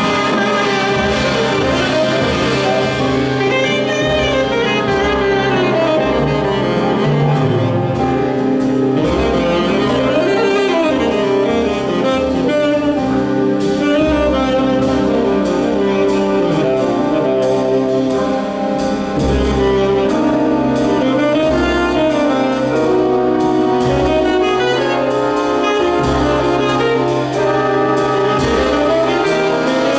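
Jazz big band playing live, with a tenor saxophone standing out over the band's brass and saxophone sections and a pulsing bass line.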